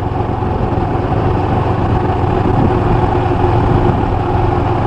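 Small motorbike engine running steadily with a continuous low hum.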